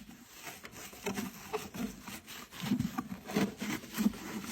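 A hand scrubber scrubbing a washing machine's detergent drawer in quick back-and-forth strokes, about three a second, louder from about halfway through.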